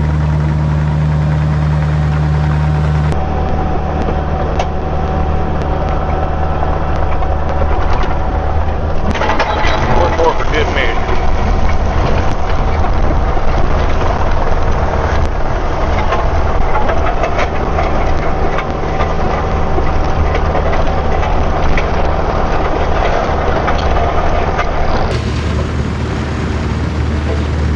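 Kubota mini excavator's diesel engine running steadily as it works a gravel driveway. From about nine seconds in, the crunch and scrape of dirt and gravel under the bucket and tracks.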